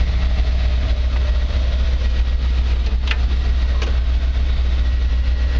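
The truck's 350 cubic-inch Chevy small-block V8 crate engine idling steadily, heard from inside the cab. Two short clicks a little past halfway as the glove box is opened.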